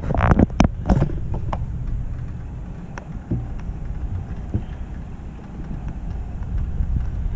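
Wind rumbling on the microphone, with a cluster of sharp clicks and knocks in the first second or so and a few scattered taps after.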